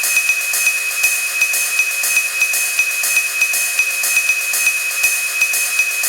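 A steady high-pitched tone under a rhythmic hissing pulse, about three pulses a second.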